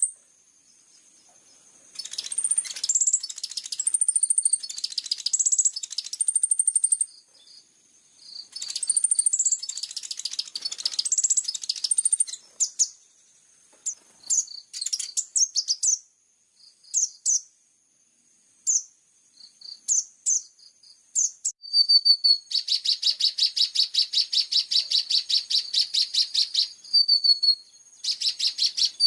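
Small songbird singing high-pitched chirps and whistled phrases, recorded as a masteran for training caged kolibri ninja sunbirds. Bursts of rapid high notes give way to scattered short chirps, then a long fast trill starts about three quarters of the way through.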